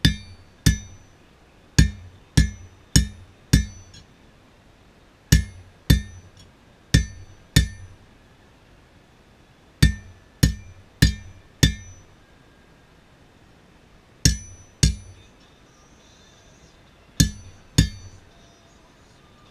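Hand-hammer blows on a steel anvil, each strike ringing out with a bright metallic ring. The blows come about 0.6 s apart in groups of four, later in pairs, with short pauses between groups: the rhythm of hand forging.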